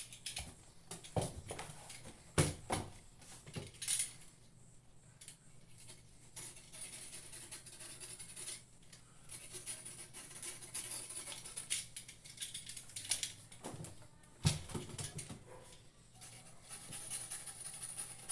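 Handling noise from lining a small speaker box with carpet: scattered sharp knocks and clicks, several in the first four seconds and one more near the end, with quiet rustling and scraping between them.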